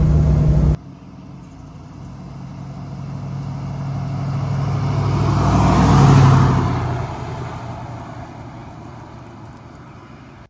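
Jeep Grand Wagoneer fitted with a new Dynomax Super Flow muffler. Its steady engine drone inside the cab cuts off under a second in; the vehicle then drives past, growing louder to a peak about six seconds in and fading away.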